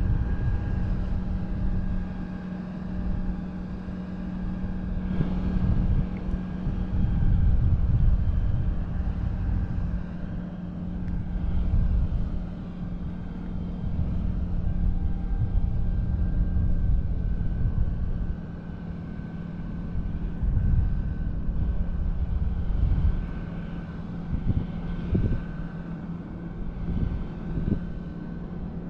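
Wind buffeting the action camera's microphone in uneven low gusts, over a steady low engine drone from the parasail tow boat below.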